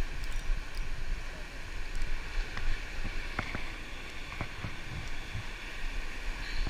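Steady ocean surf and wind noise on the camera's microphone, with a few faint clicks in the middle.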